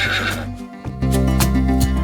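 A horse whinny, its quavering tail ending about half a second in, over background music. After a short dip, the music comes back in about a second in with bass notes and a ticking beat.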